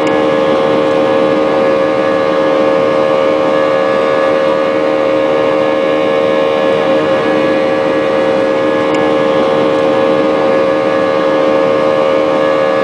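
Airbus A320-232's IAE V2500 turbofan engines heard inside the cabin while climbing out after takeoff: a steady loud roar with a constant droning hum.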